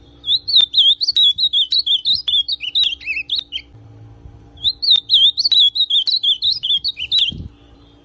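Male ultramarine grosbeak (azulão) singing two rich, fast warbled phrases of about three seconds each, separated by a short pause.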